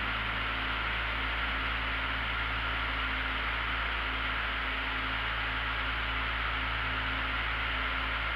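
Steady drone of a light aircraft's engine and propeller heard inside the cockpit, an even hiss over a low hum, with faint held music notes underneath.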